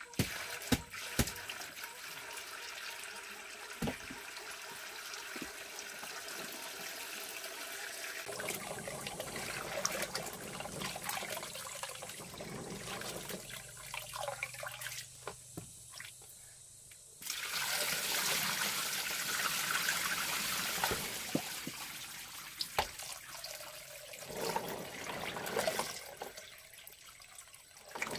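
Water trickling and splashing, with scattered clicks and knocks; it grows louder for a few seconds past the middle.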